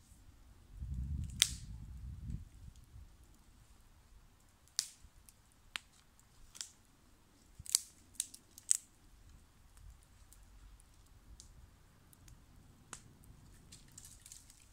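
Small stick campfire crackling, with scattered sharp snaps and pops at irregular intervals. A brief low rumble comes about a second in.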